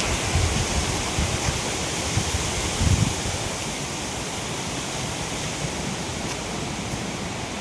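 Steady outdoor rushing noise, with a few low bumps of wind on the microphone.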